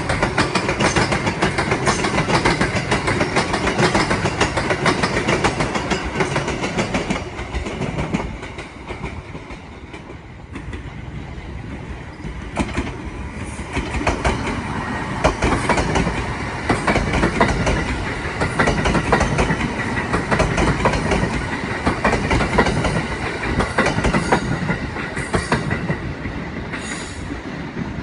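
JR East 701 series electric train moving during shunting, its wheels clattering over rail joints and points. The noise eases off about ten seconds in, then builds again, with brief high wheel squeals near the end.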